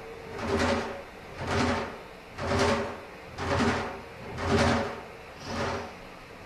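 Kinetic sound sculpture of micro-tuned tubes with paper mallet tops driven by sub-audio tones: the paper tops chatter against the tubes in rattling swells about once a second. Under each swell a few steady overtones of the tubes ring out.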